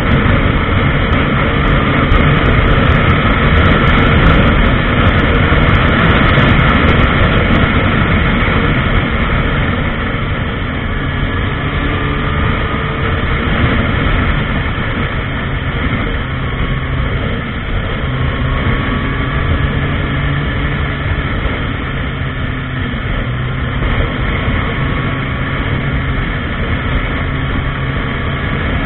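Honda CBR1000RR's inline-four engine running at highway speed under heavy wind rush on the microphone. It is a little louder for the first eight seconds or so, then eases slightly.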